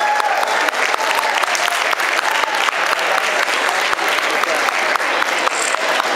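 Audience applauding: many hands clapping steadily, with a few voices calling out among the claps.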